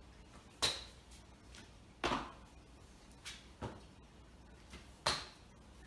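Thuds of burpees on a concrete floor: four louder landings about a second and a half apart, with softer knocks between them as hands and feet hit the floor.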